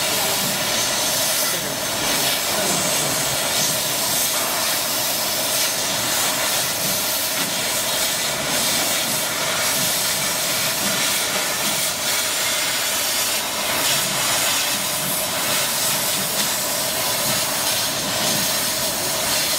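CO2 laser cutting machine running with a steady, even hiss.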